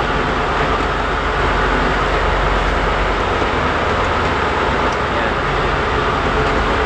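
Fishing boat's engine running steadily while under way, a constant loud drone that does not change.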